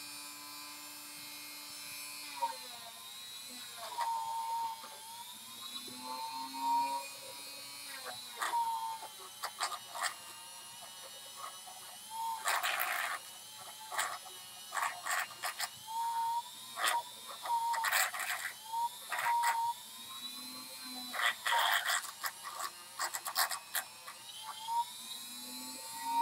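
Handheld rotary tool running, its pitch dipping and recovering. From about halfway in, many short bursts of grinding noise come as the bit touches the piece being worked.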